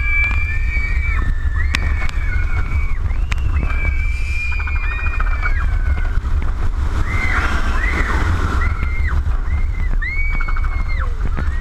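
Riders on an inverted roller coaster screaming: many long, high, held screams overlapping throughout, over heavy wind buffeting on the microphone and the rumble of the moving train.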